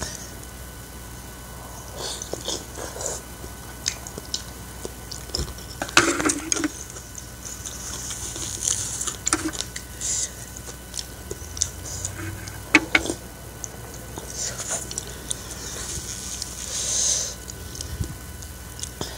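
Close-miked eating of spicy instant noodle soup with fried egg: chewing and slurping, with a few sharp clicks of a spoon or chopsticks against the bowl.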